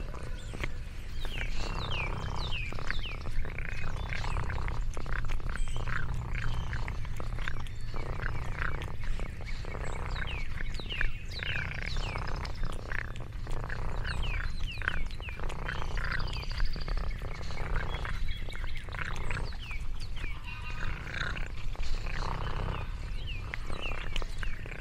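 Birds chirping again and again in quick, high, downward-sliding notes, over a steady low rumble and scattered soft clicks.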